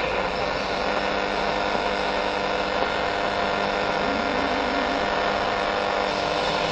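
AM medium-wave radio tuned between stations: steady static hiss with faint interference tones, one of them wavering about four seconds in, as the tuner steps up the band.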